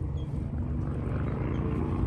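Engines of vehicles being ridden fast along the road, a steady droning that slowly grows louder as they come past.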